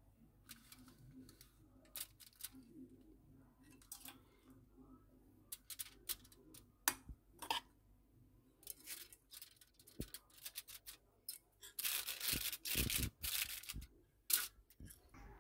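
Faint scattered clicks and scrapes of a spoon spreading minced-meat filling onto a bun half lying on aluminium foil. Near the end, a couple of seconds of crinkling as the filling is pressed down by hand on the foil.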